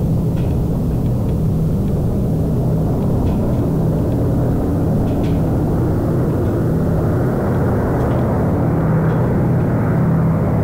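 Boeing B-17 Flying Fortress's four Wright R-1820 Cyclone radial engines droning steadily as the bomber approaches head-on with its gear down. The drone grows fuller and brighter toward the end as the aircraft closes in.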